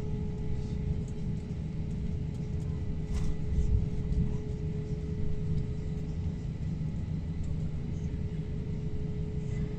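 Airliner cabin noise on final approach: a steady low rumble of engines and airflow with a constant mid-pitched hum over it, swelling briefly louder about three seconds in.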